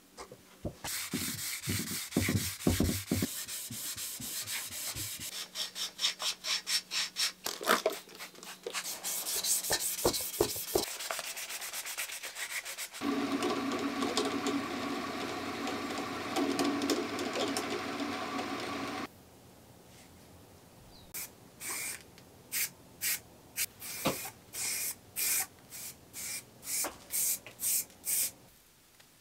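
Hand-sanding a bicycle frame tube with 220-grit sandpaper, in quick back-and-forth rubbing strokes. Then a drill press spins a buffing wheel with a steady whir for several seconds. After a short pause comes a run of short hissing bursts from an aerosol spray-paint can.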